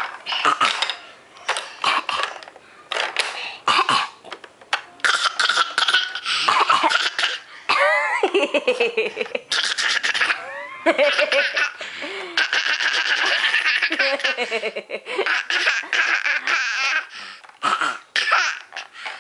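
A toddler's repeated fake coughs mixed with laughter: short bursts at first, then longer stretches of laughing in the middle.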